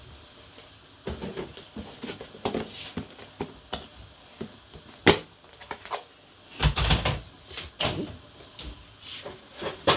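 Kitchen handling sounds: scattered light knocks and clicks, with a sharp knock about five seconds in and a louder cluster of thuds around seven seconds.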